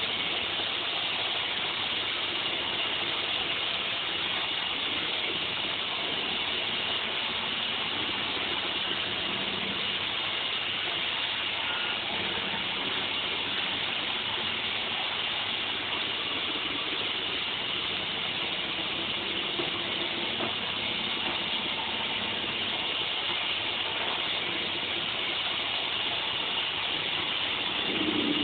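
iRobot Roomba robotic vacuum cleaner running as it drives across the floor: a steady whirring hiss from its vacuum motor and brushes, a little louder near the end.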